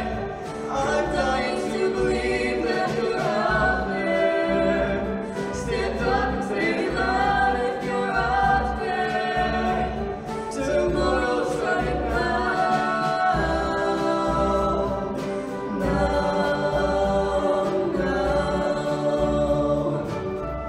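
High-school show choir singing a pop ballad in many-part harmony, backed by a live band with a steady low beat.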